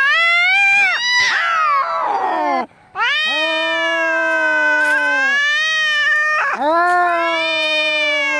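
Angry cats caterwauling in a fight: long, drawn-out yowls that rise and fall in pitch, with a harsh hiss partway through the first yowl and a short sharp cry between the last two.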